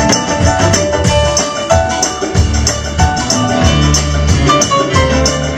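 Band music without vocals: an instrumental passage with a steady beat of bright percussion strokes over a repeating bass line and short melody notes.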